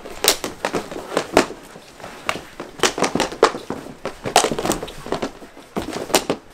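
Mini hockey sticks clacking against each other, the puck and the rink floor as players scramble and fall, a quick irregular run of sharp knocks.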